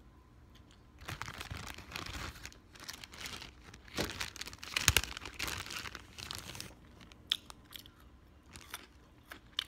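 Crinkly packaging being handled and crumpled close to the microphone, a dense crackling with sharp crunches that starts about a second in and peaks about five seconds in, then gives way to a few scattered mouth clicks of chewing.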